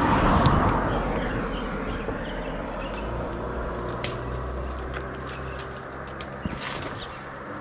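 A motor vehicle engine passing, loudest about half a second in and then slowly fading, with small birds chirping throughout.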